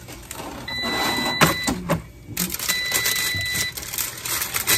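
Electronic beep from an air fryer, a long steady tone repeating about once every two seconds. Under it, metal tongs clatter against the basket's wire rack, and parchment paper crinkles as a paper-wrapped piece of food is lifted out.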